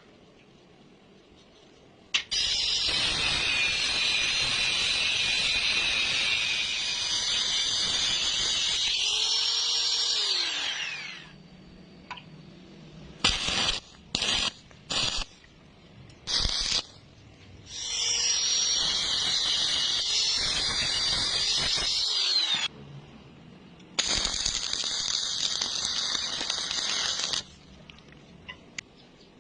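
A power tool running in three long runs of several seconds each, with a high whine that wavers in pitch under load and drops away as each run stops. A few short bursts fall between them.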